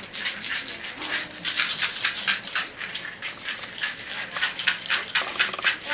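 A hand-held rattle shaker shaken rapidly, a dense run of quick rattling strokes starting about a second in.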